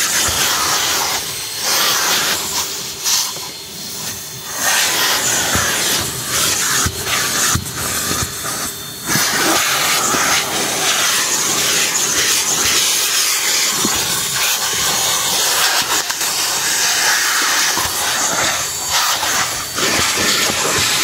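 Car wash vacuum hose sucking air over a car's floor carpet: a loud, steady rushing hiss that dips briefly a few times, with scattered small clicks.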